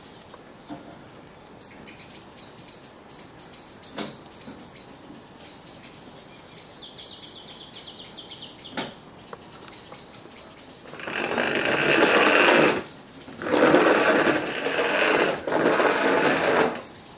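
Small electric motor of a Thomas the Tank Engine model locomotive whirring as it runs along the track, in three spells starting about eleven seconds in, as a newly wired track-power toggle switch is tested. Before that, only faint high chirping in the background, with two sharp clicks.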